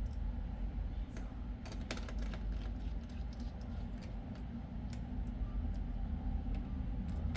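Irregular light clicks of keys being typed on a laptop keyboard, a cluster about two seconds in and more near the end, over a steady low hum.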